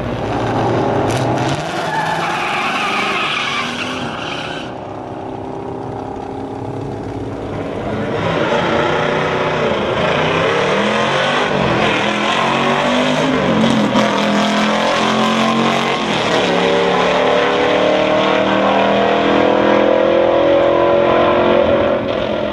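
Drag-racing V8 muscle cars: a high tire squeal for the first few seconds, then from about eight seconds in the engines run loud at full throttle, pitch climbing and dropping back again and again through the gears as the cars accelerate down the strip.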